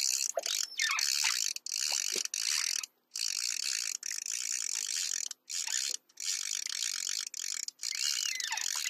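Fishing reel clicking rapidly in stretches broken by short pauses, while a big hooked fish is played on a bent rod.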